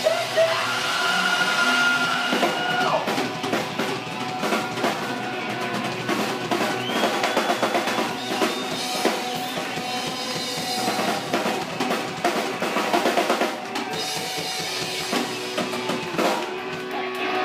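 Rock band playing live: electric guitars over busy drumming on a full drum kit, with bass drum and snare prominent.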